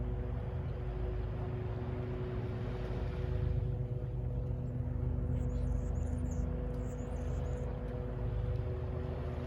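Distant city traffic rumbling steadily under a constant low hum, with a few high bird chirps about five to seven seconds in.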